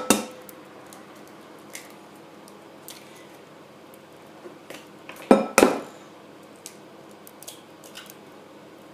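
Eggs knocked against the rim of a glass mixing bowl to crack them: a sharp knock right at the start, then two more close together about five seconds in, with a few faint ticks between.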